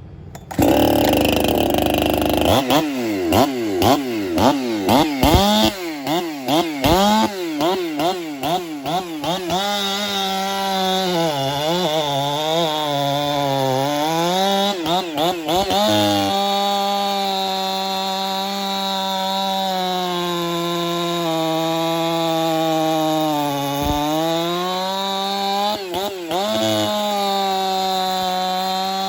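Ported Husqvarna 372 two-stroke chainsaw with a dual-port muffler and no rev limiter, revved in quick blips, then held wide open for long stretches with its pitch dipping and recovering several times, as it cuts wood with a 24-inch bar.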